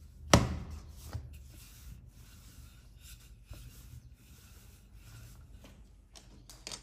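A single sharp knock about half a second in, then light rubbing and a few soft clicks of hands handling things on a kitchen surface, with a short cluster of clicks near the end.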